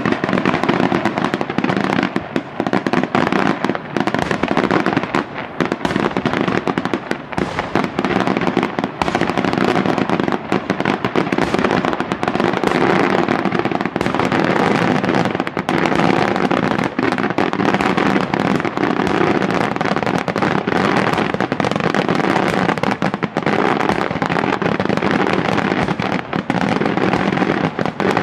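Daytime fireworks display: a continuous barrage of aerial shells going off, dense rapid bangs and crackling with no pause.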